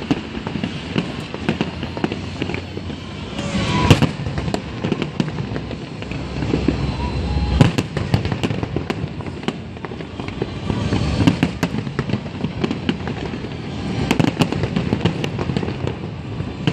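Aerial fireworks display: a steady run of bangs and crackling from bursting shells, with heavier bursts about four and seven and a half seconds in and another flurry near the end.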